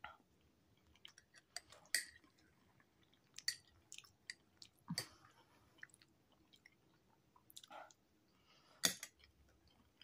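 Quiet chewing of a mouthful of macaroni salad, with soft wet smacks and small clicks scattered throughout and a few louder ones about 2, 5 and 9 seconds in.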